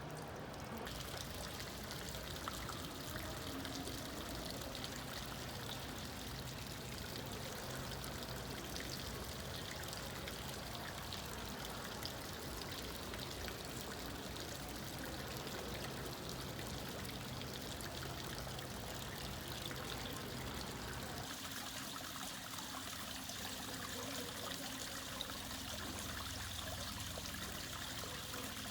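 Fountain water splashing and trickling in a steady stream. The sound changes character just under a second in and again about 21 seconds in, as a different fountain takes over.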